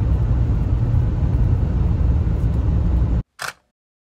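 Steady low rumble of road and engine noise inside a moving car, cutting off abruptly about three seconds in; a brief short sharp sound follows.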